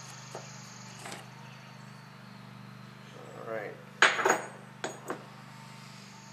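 Heavy steel clutch parts from a power director clutch clinking together as the splined center is set down on the bench: a cluster of sharp metal clinks about four seconds in, then two lighter clinks about a second later.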